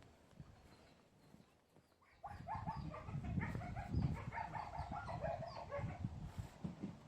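A rapid string of short, chattering animal calls beginning about two seconds in and stopping about a second before the end, over low rumbling noise.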